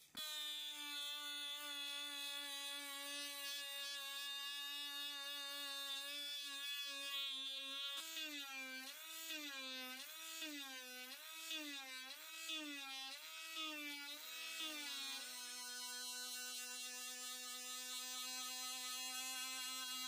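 Small electric rotary tool spinning a felt polishing wheel against a steel blade, a steady high motor whine that starts right away. Partway through, its pitch wobbles up and down about three times every two seconds for several seconds, then settles slightly lower and steady.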